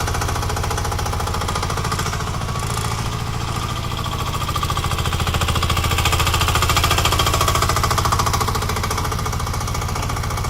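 Mini excavator's single-cylinder air-cooled engine running with a rapid, even pounding beat, getting a little louder about halfway through.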